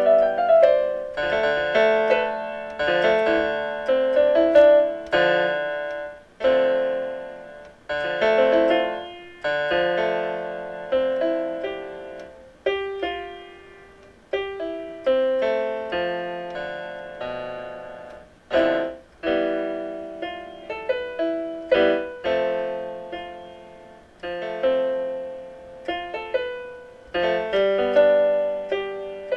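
Background piano music: notes and chords struck one after another, each fading away before the next.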